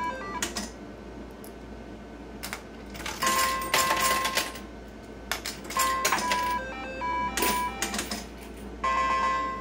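IGT S+ slot machine being played: short electronic beeping tones as credits are bet with the button, and the reels spinning and clunking to a stop.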